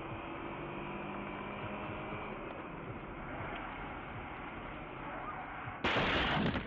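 Steady road and engine noise inside a moving car's cabin, a low even rush with a faint hum. Near the end a sudden, much louder rush of noise cuts in for under a second.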